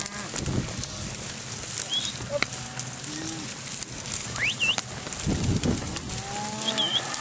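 Rustling and crackling of horses and cattle moving through brush. Over it come a few short, high chirps and, about six seconds in, a drawn-out low call.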